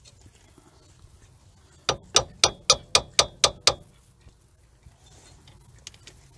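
Hand ratchet wrench clicking: a run of eight sharp clicks at about four a second, starting about two seconds in and lasting just under two seconds.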